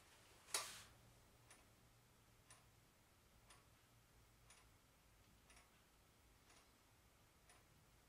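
Near silence with faint, even ticking about once a second and one louder click about half a second in.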